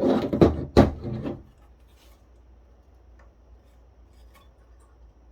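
A hand tool scraping and prying at a plastic spring-loaded heat-sink push pin on a circuit board, with a sharp snap a little under a second in. After about a second and a half the scraping stops, leaving only a couple of faint ticks.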